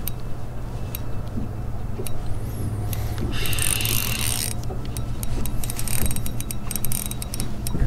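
Spinning reel cranking in line under the load of a hooked fish, its gears giving rapid clicking, with a brief hiss about three and a half seconds in. A steady low hum runs underneath.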